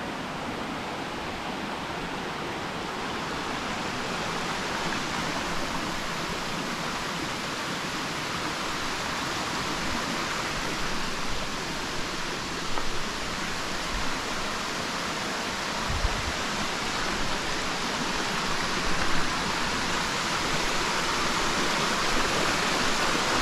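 Rushing water of a small waterfall or rocky stream: a steady hiss that grows gradually louder, with a couple of brief low bumps in the later part.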